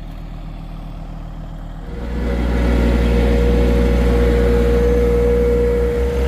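John Deere 1023E compact tractor's three-cylinder diesel running at idle, then throttled up about two seconds in and held at higher revs with a steady whine, easing back down at the very end.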